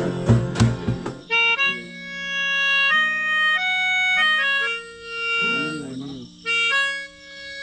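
Melodica playing a slow melody of held reed notes that step from pitch to pitch, coming in about a second in after some rhythmic percussive strokes and voices. A voice briefly sounds over it a little past the middle.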